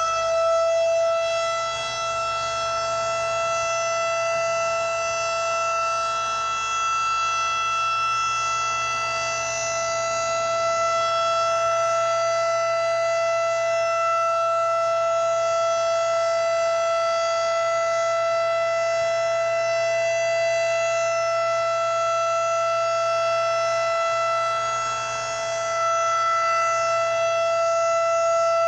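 Civil defense tornado warning siren sounding its steady test wail: a single held tone that edges up to full pitch in the first second, then holds, dipping slightly in loudness twice.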